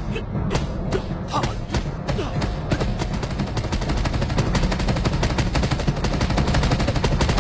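Film fight sound effects of rapid hand strikes and blocks: separate slapping hits at first, which speed up about three seconds in into a dense rapid-fire rattle of blows, with music underneath.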